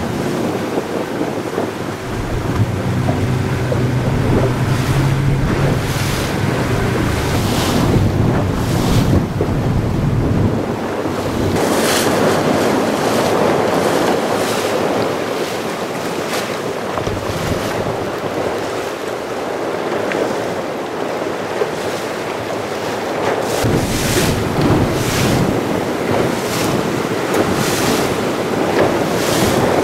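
Wind buffeting the microphone and sea water rushing and splashing along the hull of a small motorboat under way, with a steady low motor hum in the first third.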